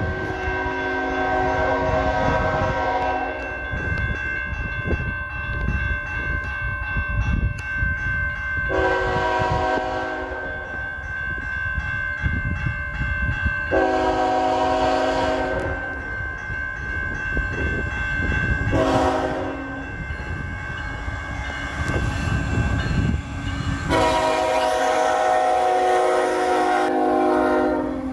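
A Canadian National freight locomotive's air horn sounds five blasts: a long blast, then the standard grade-crossing signal of long, long, short, long, with the last blast held until the engine reaches the crossing. Under the horn, the crossing's warning bell rings steadily and the approaching train rumbles low.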